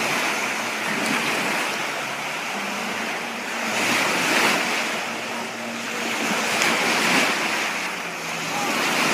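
Water rushing and splashing past a moving boat, with wind on the microphone; the noise swells and eases every second or two.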